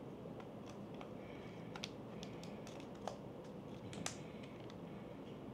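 Irregular small clicks and taps of a metal camera cage and a small screw tool being handled while the cage is fitted to a mirrorless camera body. The loudest click comes about four seconds in.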